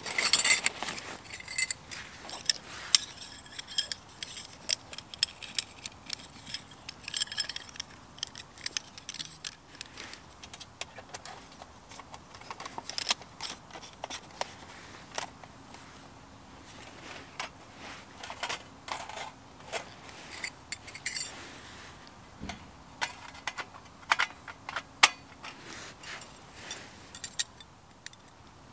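Light metallic clinks and clicks of an Arinn Fire Bowl, a folding metal fire bowl, as its rod stand is unfolded and the bowl is set on top, in scattered handling sounds throughout.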